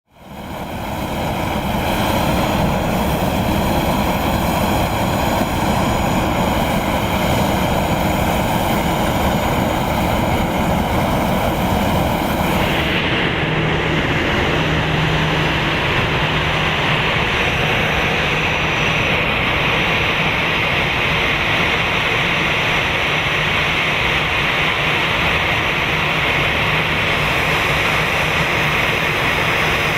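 Airbus A320's jet turbine running steadily up close, a rushing noise with several high whining tones over it, fading in at the start. About 13 seconds in the sound shifts abruptly: the highest whine drops away, a harsher hiss comes forward and a low hum joins in.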